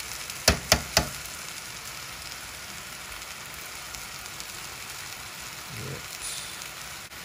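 Chicken pieces sizzling steadily as they brown in a stainless steel pan, stirred with a metal spoon that knocks sharply against the pan three times in the first second.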